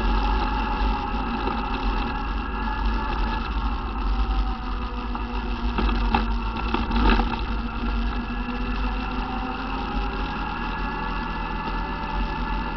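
ATV engine running at a steady speed while the quad is ridden along a gravel road, with a couple of short knocks about six and seven seconds in.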